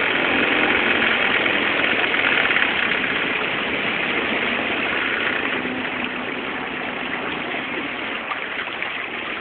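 Outboard motor of a small launch running steadily, easing off slightly over the last few seconds.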